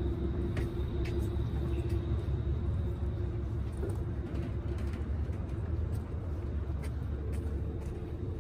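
Ferry boat's engines running: a steady low rumble with a constant hum over it, and a few faint clicks.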